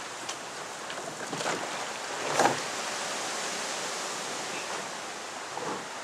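Gusty wind rushing through riverside reeds, a steady rushing with a few short louder gusts, the loudest about two and a half seconds in.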